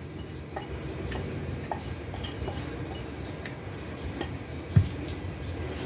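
Light scattered clicks and taps of bowls being handled as grated carrot is emptied from one bowl into another, with a single soft thump about five seconds in.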